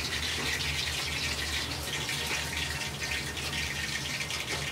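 Hot oil sizzling and crackling steadily around a wire strainer of freshly deep-fried Korean dumplings (gun-mandu) lifted from the fryer, with a steady low hum underneath.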